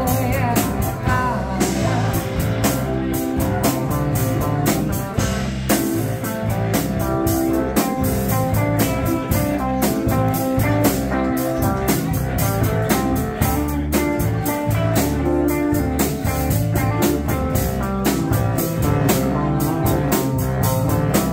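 Live band playing a blues-rock song with a steady beat: acoustic guitar strummed over a drum kit and an electric keyboard.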